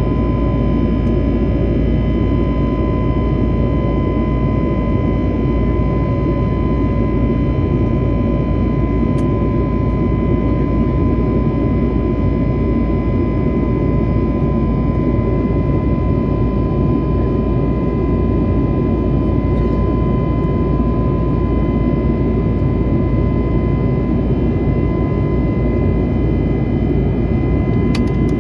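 Airliner cabin noise during the climb after takeoff: jet engines and rushing air make a loud, steady noise with a constant high whine over it.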